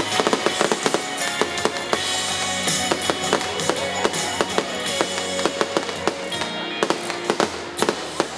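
Fireworks popping and crackling in quick, irregular succession over music.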